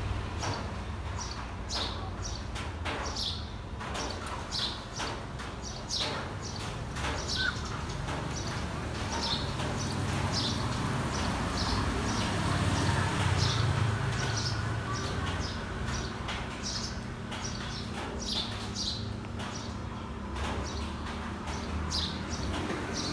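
Grey parrot making short, high chirps and clicks, scattered irregularly through the stretch, over a steady low hum.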